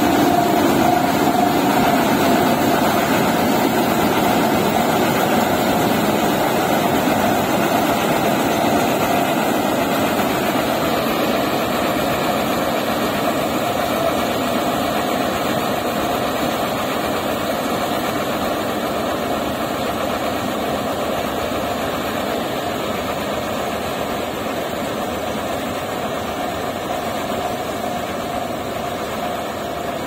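HIND combine harvester at work in standing paddy, its engine and threshing machinery running with a steady, loud mechanical din. The din slowly fades as the machine moves away.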